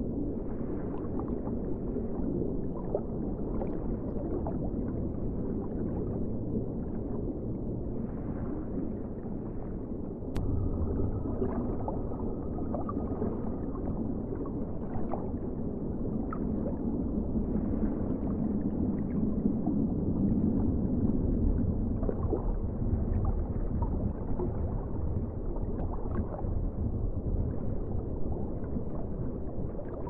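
Underwater ambience: a steady, muffled low rumble with scattered faint ticks. A sharp click comes about ten seconds in, and the rumble grows somewhat louder after it, swelling further in the middle of the stretch.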